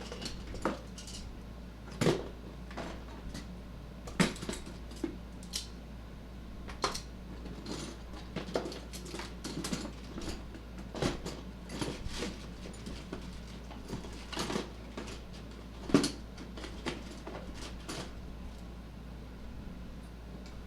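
Irregular metallic clinks and knocks from hand tools and metal scooter parts being handled, with a few sharper knocks about 2, 4 and 16 seconds in, over a steady low hum.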